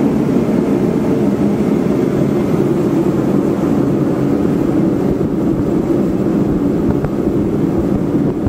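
Forced-air heater running with a steady, unbroken blowing noise as it heats a rifle barrel to melt out cosmoline.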